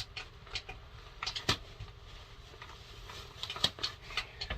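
Hands working at a tightly taped package to open it: irregular rustling and crinkling of wrapping, with scattered sharp clicks, busiest about a second in and again near the end.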